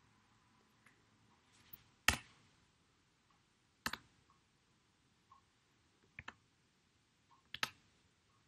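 Faint computer mouse clicks: a single click about two seconds in, the loudest, another near four seconds, then two quick double clicks near six and seven and a half seconds.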